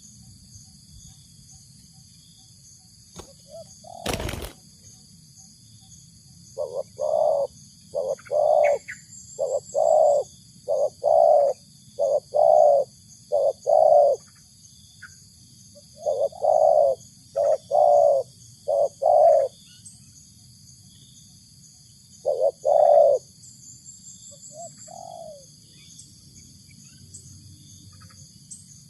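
Spotted dove (tekukur) cooing in repeated phrases of short, rounded coo notes, in three bouts with pauses between them. A single sharp knock comes about four seconds in, and a steady high whine runs underneath.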